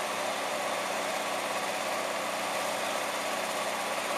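Engine running steadily at idle, a constant low hum under an even hiss, beside rail welding work.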